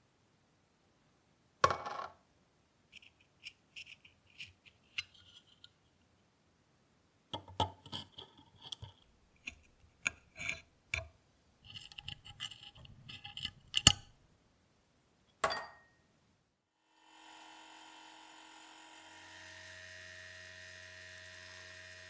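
Small metal clicks and light taps from handling and working the rusty parts of an old brass Zippo lighter, with sharp clicks about two seconds in and near the middle. Near the end a faint steady machine hum with a high whine sets in.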